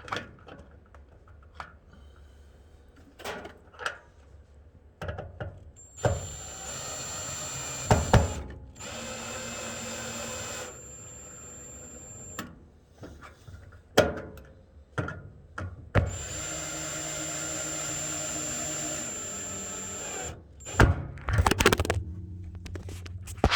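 A power drill running in two stretches of several seconds each, with a steady high whine, the first starting about six seconds in and the second midway through. Sharp knocks and clicks come between and after the runs.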